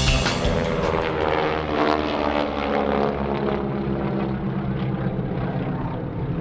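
North American SNJ Texan radial engines droning steadily under power as the pair climb in formation, with a few slight shifts in pitch.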